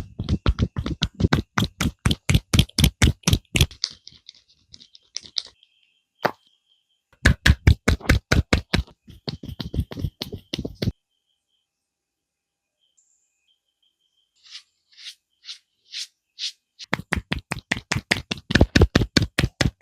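Rapid, rhythmic hand-percussion strokes of a head massage, about five strikes a second, in several runs broken by pauses, with lighter, thinner taps between the runs.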